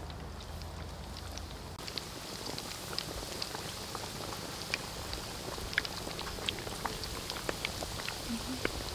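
Battered food deep-frying in a wok of hot oil: a steady sizzle with many scattered crackling pops, growing brighter about two seconds in.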